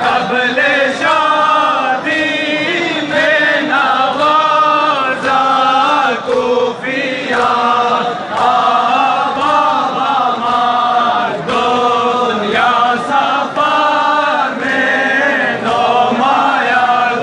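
Large crowd of men chanting a Muharram mourning lament together in long melodic phrases, crossed by sharp rhythmic strikes about once a second.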